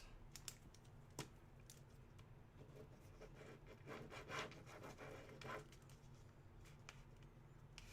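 Near silence with faint handling noise: scattered light clicks and soft rubbing, a little busier about three to six seconds in.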